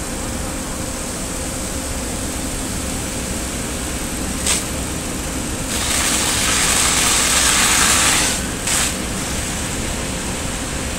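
Fire engines running steadily at the scene of a building fire, a constant engine hum. Partway through there is a short hiss, then a louder hiss lasting about two and a half seconds, then one more short hiss.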